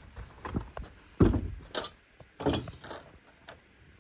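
A series of about six knocks and clunks, roughly one every half second or so, the loudest about a second in.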